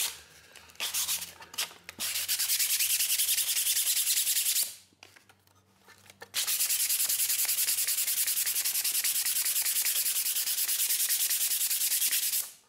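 Sandpaper rubbed by hand in quick back-and-forth strokes over a flat 3D-printed plastic part: a light scuff to give the glue something to key into. A few short strokes at first, then two steady runs of sanding with a brief pause about five seconds in.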